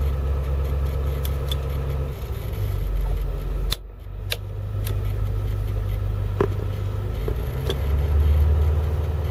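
Diesel engine of a 2004 International school bus running above idle, held up on the throttle to bring injection control pressure toward 1,000 psi. Its low drone changes pitch about two seconds in and again near eight seconds.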